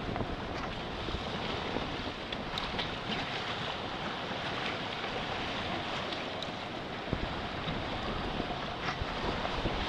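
Wind buffeting the microphone over the steady rush of sea water along the hull of a sailing yacht under way in choppy water.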